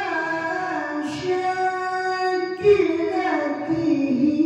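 A male qari reciting the Quran in the melodic tilawah style, his high voice holding long ornamented notes. A hissing consonant comes about a second in, and in the second half a higher phrase steps down in pitch.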